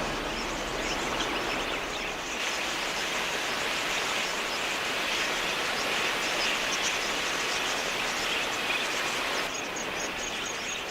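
A large flock of wild budgerigars chattering, a dense and steady mass of many small chirps.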